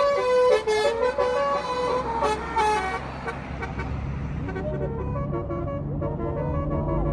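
A passing tour bus's multi-tone Basuri telolet horn plays a tune of short stepped notes, fading out about three seconds in. Then a bus engine's low hum grows louder toward the end.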